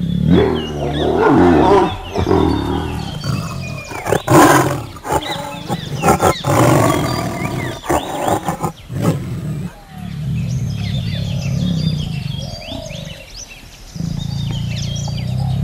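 Young tigers growling as they play-fight, loud and rough for about the first ten seconds, then quieter.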